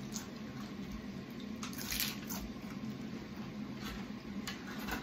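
Eating and handling hard taco shells at a table: scattered crunches, crackles and rustles, the loudest about two seconds in, over a steady low background hum.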